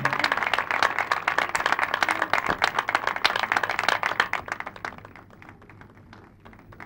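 Audience applause: dense clapping that thins out and fades about five seconds in, leaving a few scattered claps.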